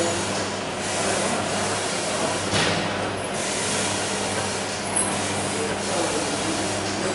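HT-11 tea bag packing machine, the string-and-tag type, running steadily: a low motor hum under a hiss that swells and falls again and again as the machine cycles.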